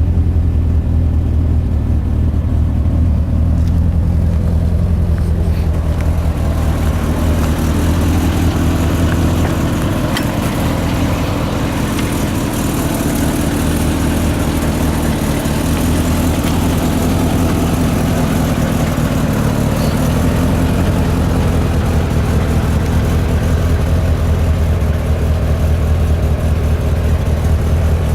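1984 Corvette's 350 Cross-Fire Injection V8 idling steadily through new mufflers. It turns hissier and brighter for a stretch from about six to twenty seconds in.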